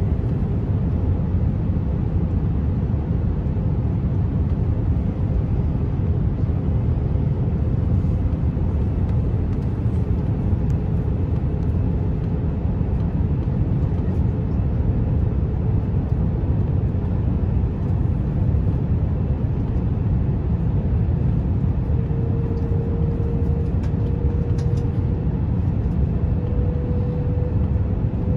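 Airbus A350 cabin noise on approach with the landing gear down: a steady low rush of engines and airflow, with a faint hum that climbs slightly in pitch over the last few seconds.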